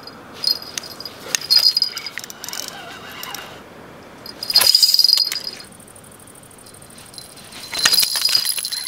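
Small metal bell jingling in three bright, rattling bursts.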